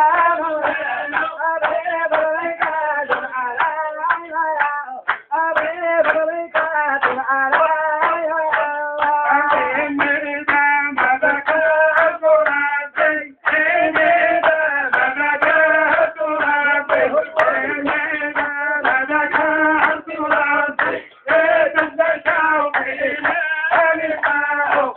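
A group of people singing together to steady rhythmic hand clapping, with short breaks about five, thirteen and twenty-one seconds in.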